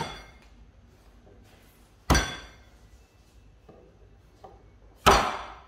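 Shallots being smashed with a flat wooden pounder on a wooden cutting board: three hard whacks about three seconds apart, each followed by a brief ring.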